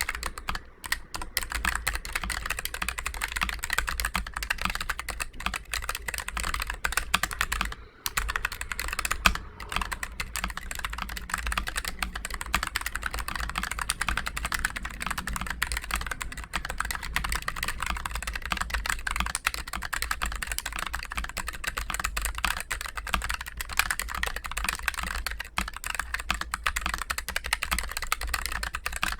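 Continuous fast typing on a Keychron K3 Pro low-profile mechanical keyboard with Gateron low-profile Brown tactile switches, keystrokes clacking in quick succession. There are short pauses about a second in and about eight seconds in.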